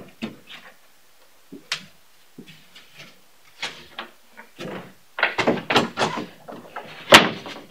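Plywood platform boards being handled and laid onto a pine bed frame: scattered wooden knocks and scrapes, busier a little past halfway, with one sharp knock near the end.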